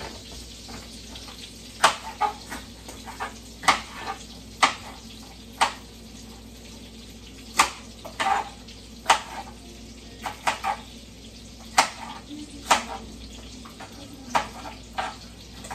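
A kitchen knife chopping green bell pepper on a cutting board: sharp knocks, unevenly spaced at about one a second. Underneath, a faint steady sizzle of Italian sausages frying in a skillet on a low flame.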